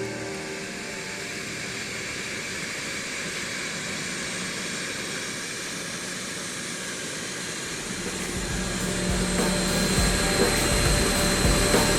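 Aircraft turbine engine running: a steady hiss at first, then about eight seconds in it grows louder, with a low rumble under a thin high whine.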